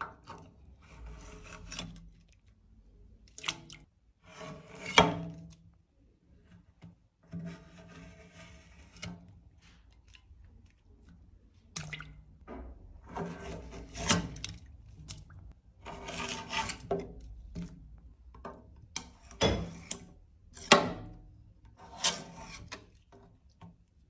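Flat metal scraper scraping thick, crumbly built-up candle wax off the metal rims of a wax-melting tank, in irregular strokes with short pauses between them. The sharpest scrapes come about five seconds in and again about twenty-one seconds in.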